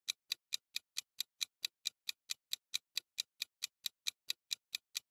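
Countdown-timer sound effect: quick, evenly spaced clock ticks, about four or five a second, marking the time left to answer.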